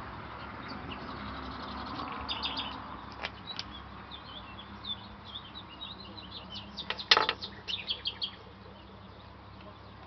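Small birds chirping and twittering in quick, high series, thickest between about two and eight seconds in. The birds are heard over a steady low background noise, with one loud, sharp sound about seven seconds in.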